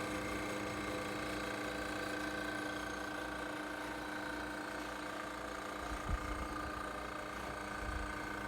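A 1932 Westinghouse refrigerator's cooling unit running just after being switched on: its fan and compressor give a steady hum with several steady tones. A few low thumps come in from about six seconds in.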